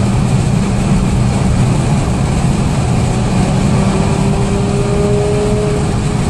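Highway driving noise heard from inside a car's cabin: the engine and tyres running steadily at speed. A faint, slightly rising tone comes in about three and a half seconds in and fades out shortly before the end.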